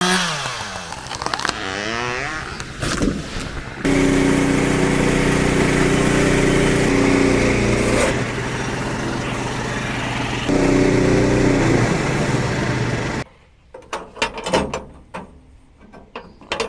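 An engine running steadily in several short cut-together stretches, then quieter knocks and clatter in the last few seconds.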